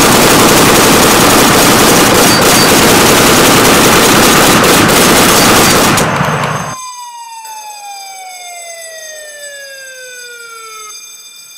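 Extremely loud, distorted sound effects of rapid gunfire mixed with a siren, cutting off about six and a half seconds in. They give way to a single tone with overtones that glides slowly downward in pitch for about four seconds.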